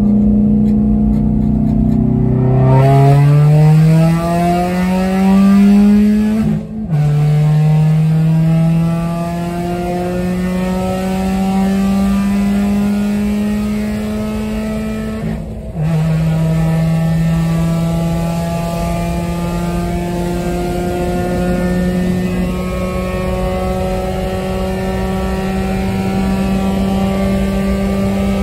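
2008 Pontiac G5's 2.2-litre Ecotec four-cylinder, with long-tube header and straight-pipe exhaust and no muffler, at full throttle, heard from inside the cabin. Its pitch climbs steadily through the gears, with two quick upshifts about 7 and 16 seconds in, where the sound briefly cuts and the pitch drops before rising again.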